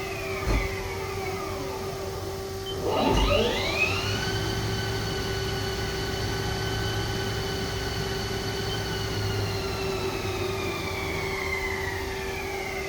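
Haas ST40L CNC lathe spindle running with its motor whine: a thump about three seconds in, then the whine rises quickly as the spindle spins up, holds at speed, and slowly falls again near the end. A steady hum sits underneath throughout.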